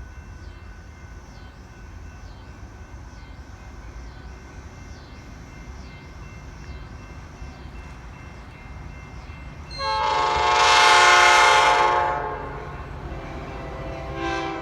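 Metra commuter train approaching with a steady low rumble and a faint high ring repeating about once a second. About ten seconds in, a loud multi-chime train horn sounds for about two and a half seconds, then a quieter horn chord carries on until near the end.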